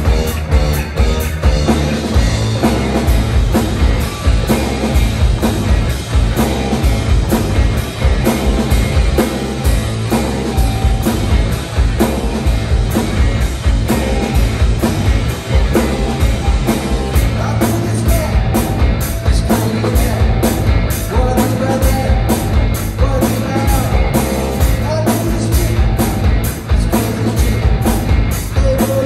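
Live rock band playing through stage amplifiers: distorted electric guitars over a drum kit keeping a steady beat on the cymbals.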